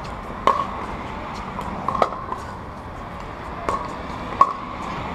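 Pickleball rally: paddles striking a hard plastic Dura 40 ball, four sharp hollow pocks about a second or so apart, the loudest near the end.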